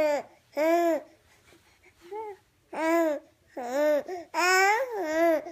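Repeated high, kitten-like mewing calls, about six short cries each under a second, each arching up and down in pitch.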